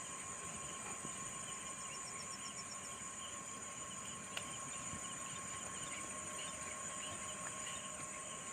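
Steady evening chorus of crickets and other insects, a high continuous trill, with a short run of quick chirps about a second and a half in and a single click about four seconds in.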